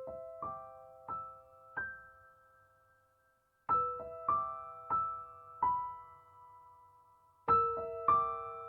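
Background music: a slow, sparse piano melody of single notes, each ringing out and fading, played in phrases of four with short pauses between.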